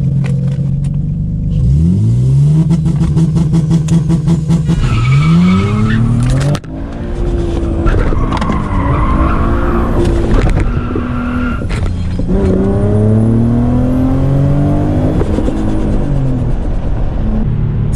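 Turbocharged Nissan G35's VQ35DE V6 accelerating hard through the gears. The engine pitch climbs and drops back at each of about four upshifts.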